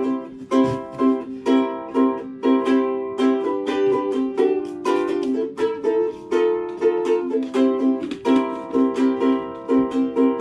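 Background music: an upbeat strummed and picked ukulele tune with quick, even plucked notes.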